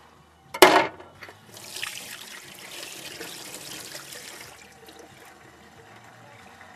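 A sharp knock about half a second in, then a tap running into a stainless-steel sink for about three seconds as hands are rinsed under it, fading out well before the end.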